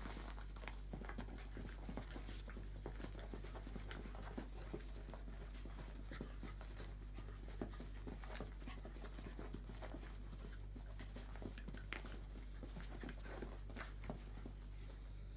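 A puppy spinning and nipping at its own tail on a carpet: faint, irregular scuffs and small clicks of paws and teeth, over a low steady hum.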